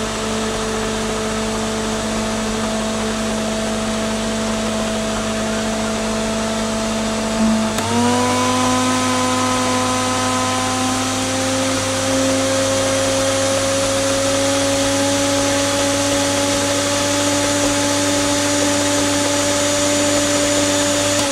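Countertop blender motor running steadily, blending a thick homemade hair-treatment mixture. About eight seconds in its pitch steps up and then creeps slowly higher.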